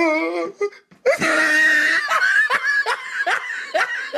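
A person laughing hard: a loud shriek about a second in, then rapid repeated bursts of laughter, about three a second.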